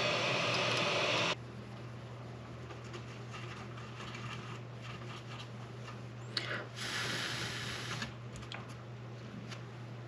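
Hot-air rework station blowing with a steady hiss, cut off sharply about a second in once the old charging connector has been desoldered. After that only a low steady hum and a few faint handling ticks remain.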